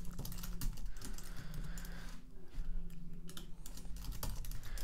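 Typing on a computer keyboard: a quick, irregular run of key clicks as code is typed, over a faint steady low hum.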